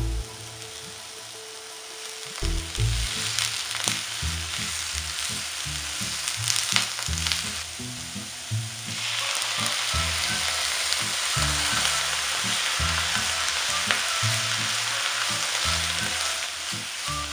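Maitake mushrooms and garlic scapes sizzling in a frying pan, with a few scrapes and knocks as they are stirred. About halfway through, soy sauce goes into the hot pan and the sizzle becomes louder and stays up.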